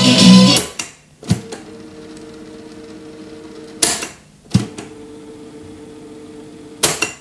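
Music from a Sharp GF-9494 boombox stops under a second in. The cassette deck's piano keys click and clunk, and its tape transport fast-winds twice with a steady quiet whir, each run ending in a clunk.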